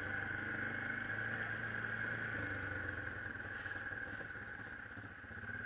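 Yamaha Kodiak ATV engine running as the quad rolls along at low speed, a steady hum that slowly eases off.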